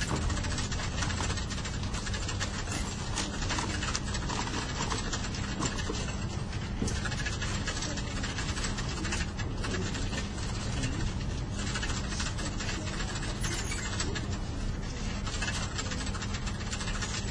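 Office ambience: a steady low hum under indistinct background chatter, with scattered small clicks and knocks.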